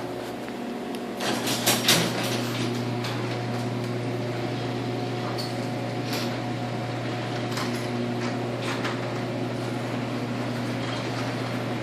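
LiftMaster chain-drive garage door opener closing the door: a cluster of clicks and clanks about a second in as the motor starts and the chain takes up, then the motor, chain and door run with a steady low hum.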